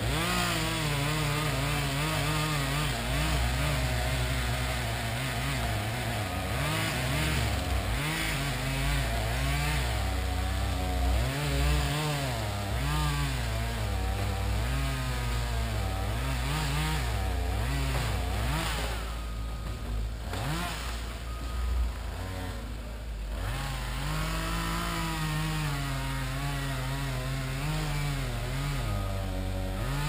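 Engine running hard and revving up and down over and over, with a short dip in the middle.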